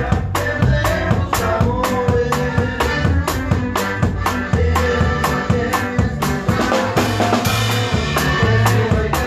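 Live norteño band playing a norteña: a steady drum-kit beat with bass notes and held melody notes over it.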